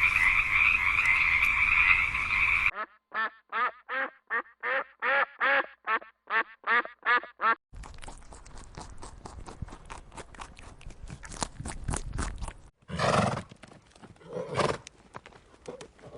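A run of different animal sounds. First a dense chorus of frog-like croaking that stops suddenly under three seconds in. Then a rapid series of about fifteen short pitched calls, about three a second. Then a stretch of clicking and rustling with two louder calls in the second half.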